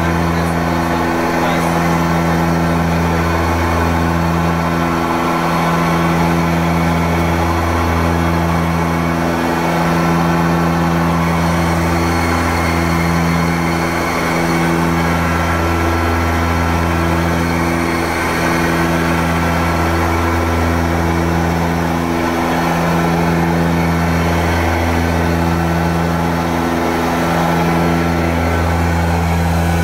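The two Ivchenko AI-24 turboprops and four-blade propellers of an Antonov An-24 running steadily, heard in the cockpit. The deep propeller drone swells and fades in a slow, regular beat, the beating of two propellers turning at slightly different speeds.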